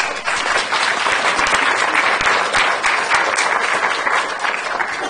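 Audience applauding: many hands clapping steadily, tailing off near the end.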